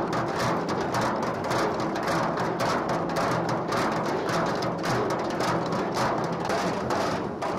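Loud, heavily distorted rock music: a dense wall of noise with drum hits throughout.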